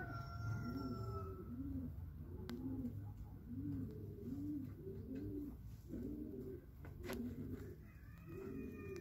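Andaluz pigeons cooing: a steady run of short, low coos that rise and fall, roughly one a second, with a couple of sharp clicks in between.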